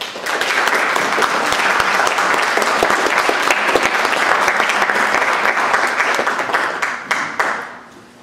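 Audience applauding: a dense clatter of many hands clapping that thins to a few last claps and dies away near the end.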